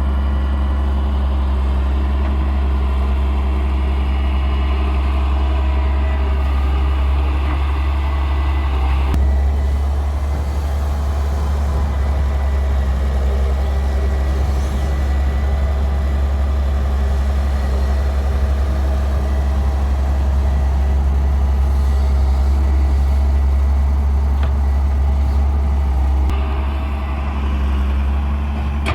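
Heavy diesel engine of an earthmoving machine running steadily under work, its note shifting about nine seconds in and again near the end.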